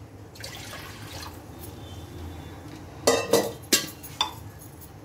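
Water being poured from a steel jug into a steel kadhai, a short soft splashing pour near the start. About three seconds in come a few sharp clanks of steel utensils.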